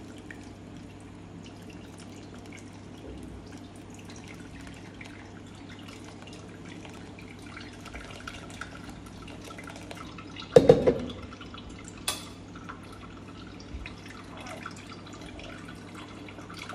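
Thick blended pineapple, cucumber and ginger juice pouring from a blender jug and splattering into a mesh strainer, draining steadily. A loud knock comes about two-thirds of the way through, with a sharper click just after.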